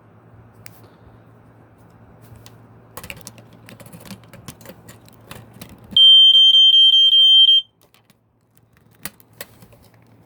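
BRK 1200 smoke alarm's horn giving one loud, high beep of about a second and a half, about six seconds in, as it powers up on a freshly fitted battery. A few sharp clicks come before and after.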